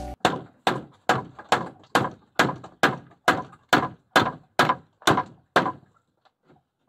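A run of thirteen sharp, evenly spaced knocks, a little over two a second, stopping about five and a half seconds in.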